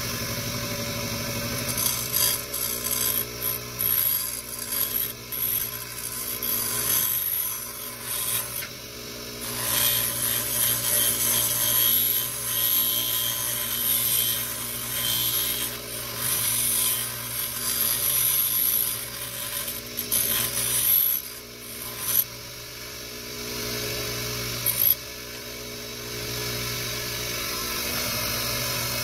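Electric grinder running with a steady motor hum while a metal truck key is pressed against the grinding wheel, giving a hissing scrape that comes and goes in repeated bursts from about two seconds in until near the end.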